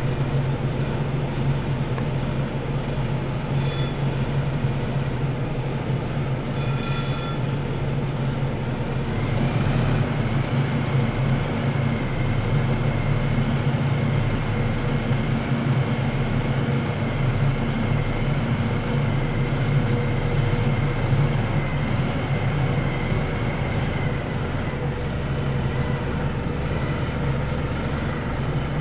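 Clark forklift running steadily while its hydraulic rotator attachment turns the forks. A steady high whine joins about nine seconds in and holds on, and two brief high beeps come at about four and seven seconds in.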